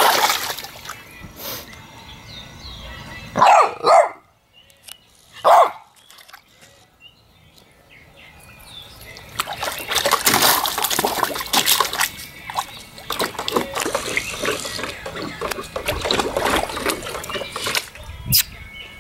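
A Boston terrier pawing and splashing the water in a plastic kiddie pool, with three short, loud barks a few seconds in.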